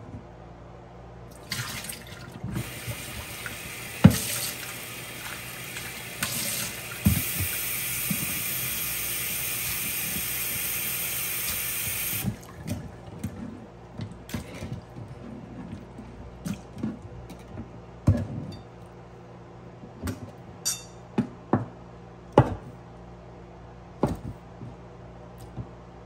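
Kitchen tap running into a bowl in the sink for about ten seconds, then shut off, with a sharp knock about four seconds in. After that, scattered light knocks and taps as chopped conch meat is handled on a wooden cutting board and dropped into the bowl of water.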